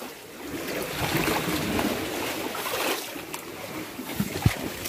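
Sea water washing and surging against a rocky shore, swelling about a second in and easing off, with one sharp thump near the end.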